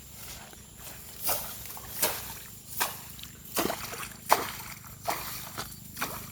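Footsteps splashing through shallow water and mud, one step about every three-quarters of a second.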